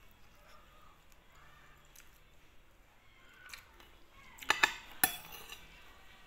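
Metal spoon and fork clinking and scraping against a plate of rice, with a quick cluster of sharp clinks about four and a half seconds in.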